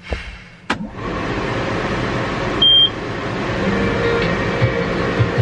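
John Deere diesel engine cold-starting at minus 21 after only twenty minutes on the block heater: a click about a second in, then the engine turns over and runs with a steady, rough noise. A short electronic warning beep sounds a little before halfway.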